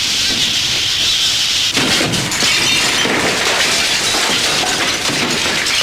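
Earthquake sound effect: a loud, continuous rumbling noise, joined about two seconds in by repeated crashes of breaking and falling debris.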